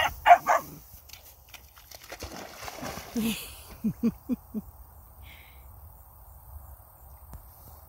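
A young puppy gives three short high yelps, then splashes into a pond and swims off, with a stretch of water noise and four short low sounds about four seconds in. Insects chirr steadily underneath.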